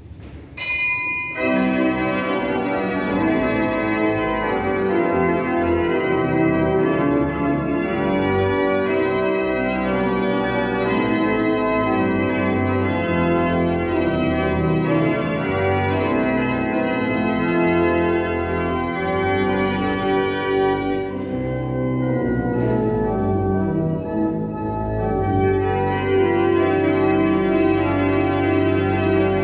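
Pipe organ playing a hymn in full held chords, setting in about a second in.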